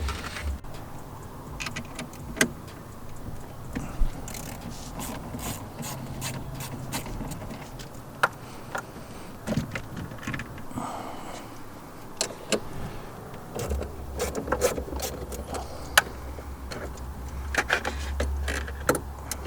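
Irregular sharp clicks and light metallic knocks of hand work on a car, consistent with the battery being disconnected before airbag work. A low steady hum sets in about two-thirds of the way through.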